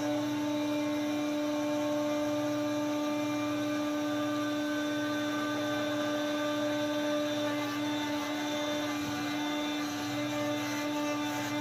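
Sawmill machinery running steadily: a constant mechanical hum holding one pitch, with no change in load.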